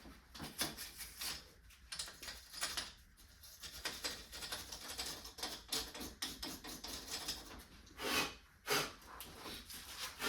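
Irregular scratching and scraping of hand cleaning work on the car's battery area, with two louder scrapes or knocks about eight and nine seconds in.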